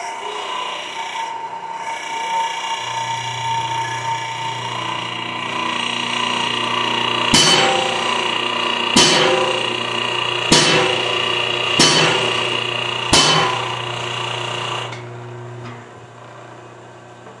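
Hydraulic shop press pressing a steel bushing into the bore of an excavator H-link, with a steady hum from the press starting a few seconds in and stopping near the end. Partway through come five sharp, ringing metal bangs, about one every second and a half, as the fit is forced home.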